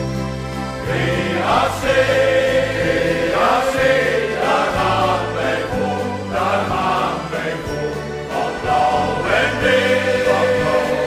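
Background music with choir-like singing over sustained chords.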